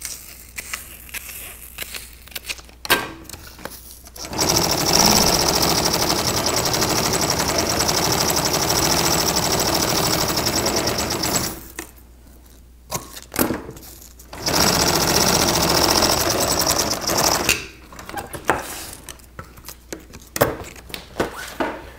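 Industrial sewing machine stitching canvas in two steady runs, one of about seven seconds and a shorter one of about three seconds, with a pause between. Scattered light clicks of handling come before, between and after the runs.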